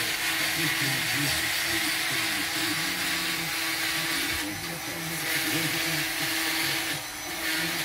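Handheld electric straight grinder sanding carved wood: a steady motor tone under a loud sanding hiss, which eases off briefly twice, around the middle and near the end.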